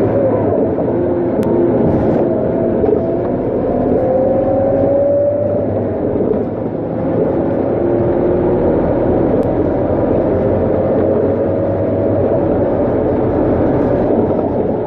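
Scania K230UB city bus's engine and ZF automatic gearbox pulling under acceleration, heard from inside the passenger cabin: a whine rising in pitch, a brief dip in level between six and seven seconds in as the gearbox shifts, then a slow rise again.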